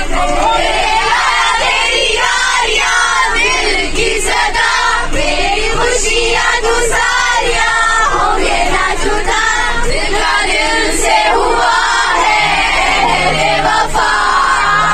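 A group of voices singing together, loud and with no break.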